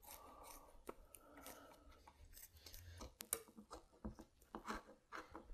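Scissors snipping through carpet padding, faint, with a handful of short, irregularly spaced cuts.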